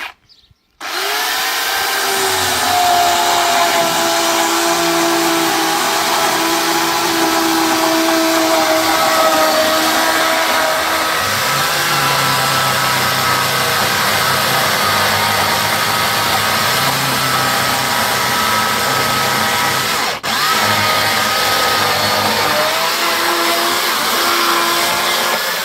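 Makita UC3541A corded electric chainsaw starting up about a second in and running steadily while sawing through hard wood, its motor pitch sagging slightly as the chain bites and lifting again near the end. The saw cuts out for an instant about two-thirds of the way through, then runs on.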